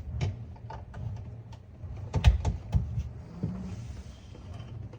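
Kenmore refrigerator's condenser fan and compressor running with a steady low hum, with no ticking: the fan, which had slid forward on its shaft and was striking the condenser coils, now runs clear. A few irregular knocks and clatters come through, the loudest about two seconds in.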